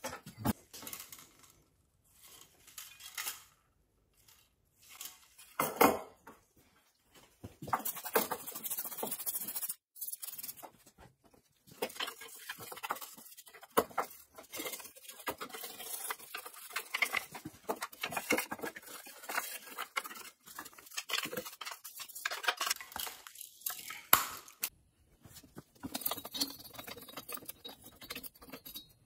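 Cleaning the dismantled plastic housing and engine of a 1982 Poulan 1800 chainsaw by hand: a few separate knocks and rattles of parts being handled, the loudest a sharp knock about six seconds in, then long stretches of brisk scrubbing and brushing broken by clicks and clinks.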